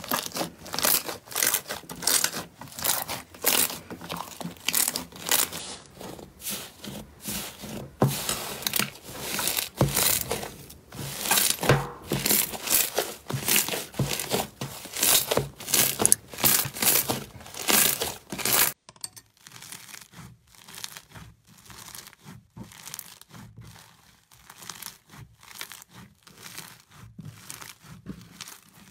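Hands squeezing and kneading slime, a dense run of sticky crackles and pops. A little under two-thirds of the way through it turns quieter and finer as foam-bead slime (floam) is worked.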